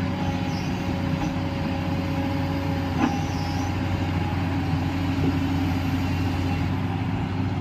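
JCB tracked excavator's diesel engine running steadily, with a single knock about three seconds in.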